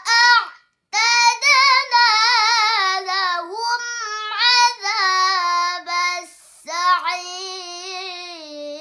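A young girl chanting Quran recitation in the melodic tilawah style: long drawn-out notes with rapid wavering ornaments, broken by a short pause for breath just under a second in and another dip about six seconds in.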